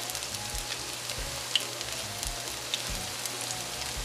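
Battered sweet potato and vegetable fritters frying in shallow oil in a frying pan: a steady sizzle scattered with small pops and crackles.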